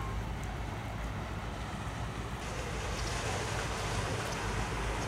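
Steady outdoor noise of wind on the microphone and water, with a low hum from a river cruise boat passing at a distance. The hiss gets brighter about two and a half seconds in.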